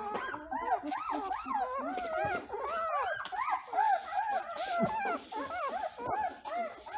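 Newborn German shorthaired pointer puppy squealing and whimpering: a quick string of short, high-pitched cries, about three or four a second, each rising and falling in pitch.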